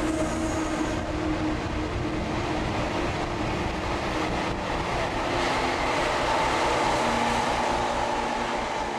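Electric train running along the tracks below, its wheels rumbling steadily on the rails, with a whining tone coming in about halfway through.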